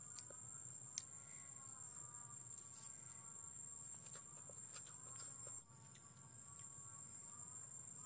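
Faint sounds of eating by hand: a few sharp clicks and mouth smacks, the strongest about a second in. Under them run a steady high-pitched whine and faint background music with slowly wavering tones.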